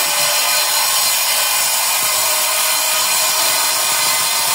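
Sliding-table masonry saw cutting through a brick paver: a steady, loud, high grinding noise that holds an even pitch and level.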